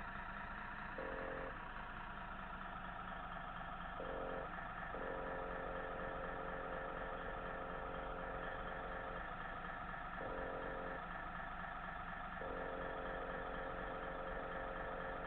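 Steady, unchanging engine-idle sound from RC model trucks, with no revving, and a tone that cuts in and out every second or so.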